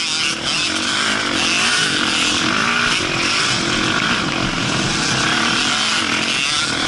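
Kawasaki KX450F four-stroke single-cylinder motocross engine heard from on the bike, revving up and down as the rider accelerates and eases off around the track, under steady wind hiss.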